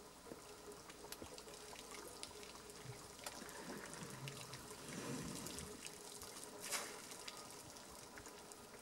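African bush elephant drinking: faint trickling and dripping of water as it squirts trunkfuls into its mouth, with one brief louder rush of water late on.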